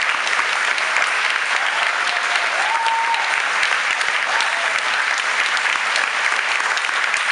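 Audience applauding steadily, a room full of people clapping hands, with a few calls rising over the clapping.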